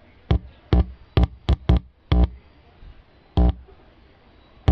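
Speaker driven by the Sony Shake-X10D's power amplifier giving short bursts of buzzing hum, seven in all over the first three and a half seconds, as a finger touches the amplifier input. The buzz comes through, so this amplifier channel is working.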